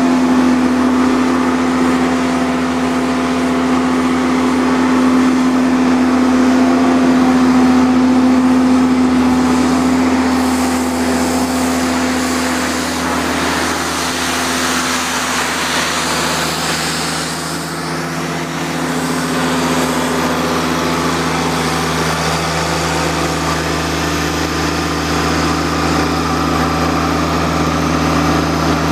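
Diesel engine of a hydraulic pressure-washing rig running steadily, with a louder hiss swelling and fading in the middle. Its pitch steps down slightly about two-thirds of the way through.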